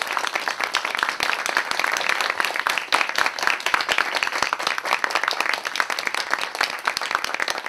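Audience applauding steadily, a dense spatter of many hands clapping.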